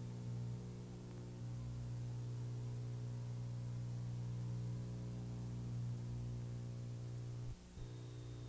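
Steady low electrical mains hum with a buzzy edge, from the recording chain rather than any film, briefly dipping out about three-quarters of the way through.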